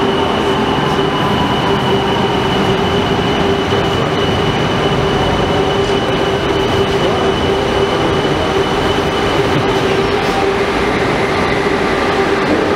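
Cable-hauled funicular car running along its rails and drawing into the station, a steady rumble with a constant droning tone and a thin high whine that stops about ten seconds in as the car comes to rest.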